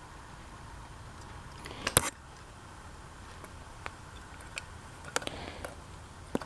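Ceiling fan parts being handled during an inspection of the switch housing: a sharp clack about two seconds in, then a few lighter clicks and taps over a faint steady hiss.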